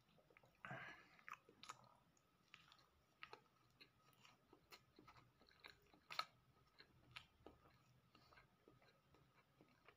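Faint close-miked eating sounds of a soft cheese roll: quiet chewing with scattered wet lip smacks and mouth clicks, one sharper click about six seconds in, and fingers being sucked clean near the end.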